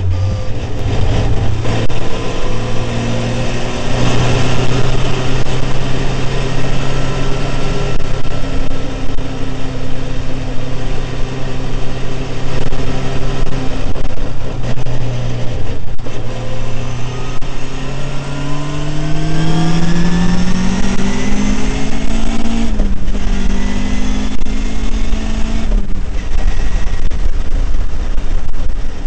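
Caterham R500's Ford Duratec four-cylinder engine heard from the open cockpit, running steadily at a cruise with wind rushing past. About two thirds of the way through, the revs climb under acceleration, then fall sharply at a quick upshift on the Quaife sequential gearbox; the engine holds steady and the driver lifts off near the end.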